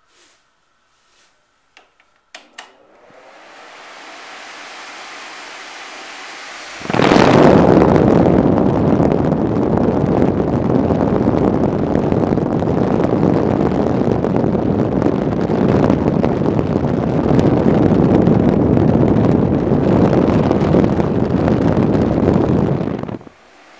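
A few clicks, then a Lasko 4900 high-velocity blower fan spins up into a steady rush of air. About seven seconds in the noise jumps to a loud, deep, even rush as the outlet blast hits the microphone, and it drops off sharply shortly before the end.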